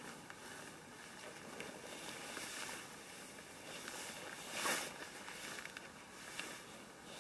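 Quiet rustling and scuffing as a tarp shelter and its guy ropes are handled and tightened, with scattered small clicks and one louder rustle a little past halfway.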